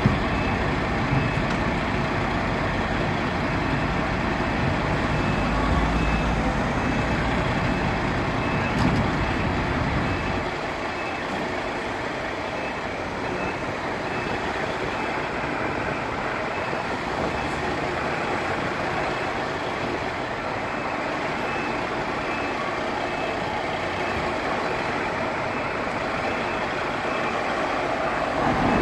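Street noise dominated by vehicle engines, fire engines' diesels running and traffic passing, with a heavy low rumble that drops away about ten seconds in.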